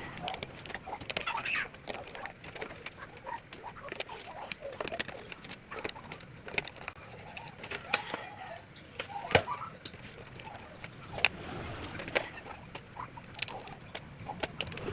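Scattered knocks and clicks of wooden parts and tools being handled as a crosscut jig base is assembled, with short bird calls in between.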